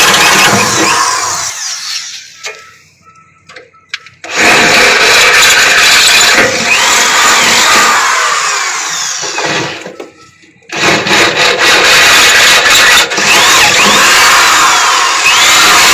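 Variable-speed electric drill boring through the steel floor of a truck battery box, run loud in three long stretches with short pauses about 2 s and 10 s in, its pitch sliding up and down as the bit cuts the metal.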